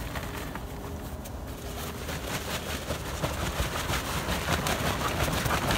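Dry hemp trim (shake) emptying from the bottom of a fabric trim bag into a plastic tub, with the bag's fabric rustling. It makes a crackling rustle that grows louder after about two seconds.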